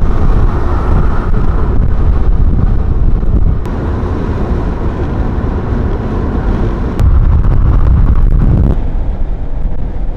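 Road and wind noise of a car driving at highway speed, a steady low rumble with no voices. It gets louder suddenly about seven seconds in.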